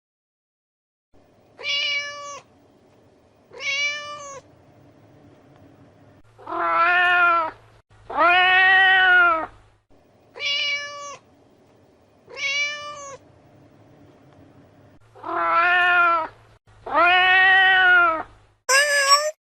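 Domestic cat meowing nine times: pairs of short meows alternate with pairs of longer, louder meows, each call rising and then falling in pitch. A faint low hum runs between the calls.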